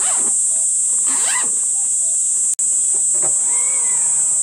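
A steady, high-pitched outdoor insect chorus, with a brief dropout about halfway. Near the end a single drawn-out animal call rises and then falls in pitch.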